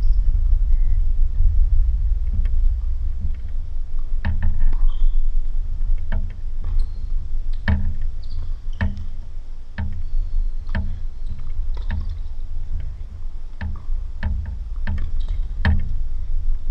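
Tennis balls being struck by rackets and bouncing in a rally: sharp pops coming about once a second, over a steady low rumble.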